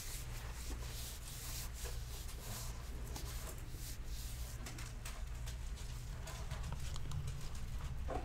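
Low steady hum with faint, scattered light clicks and rustles, as of small objects being handled on a table.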